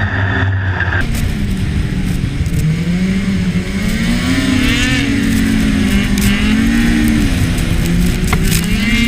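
Snowmobile engine running under changing throttle, its pitch rising and falling, over the rushing noise of the machine moving. About a second in, the sound changes abruptly from a steadier tone.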